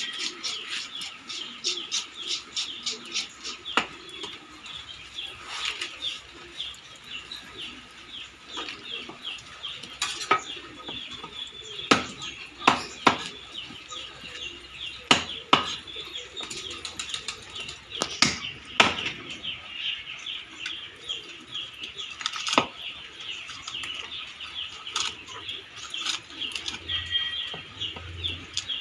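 Fish scales being scraped off a barracuda: a fast run of scraping strokes from a hand scaler, then a cleaver drawn over the skin. Sharp knocks of the cleaver against the wooden chopping block come now and then through the second half.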